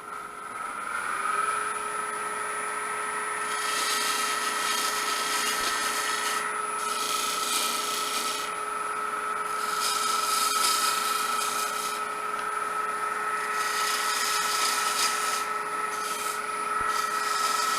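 Wood lathe running with a steady motor whine that rises slightly in pitch about a second in as it comes up to speed. A turning tool cuts the spinning cedar in about five separate hissing passes.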